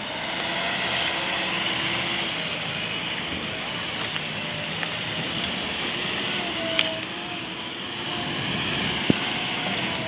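JCB backhoe loader's diesel engine working under load, its pitch rising and falling as the machine drives and digs its front bucket into sand. Two short sharp clicks sound in the second half.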